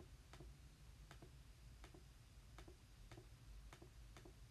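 Faint, irregular clicks of calculator keys being pressed while an answer is keyed in.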